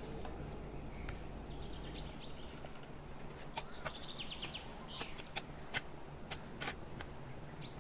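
Birds chirping in short repeated trills over a low steady hum of background noise. A run of sharp clicks comes in from about halfway through.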